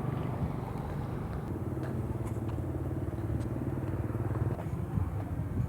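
A motor vehicle's engine running at a steady speed, a low even hum that is strongest through the middle of the stretch.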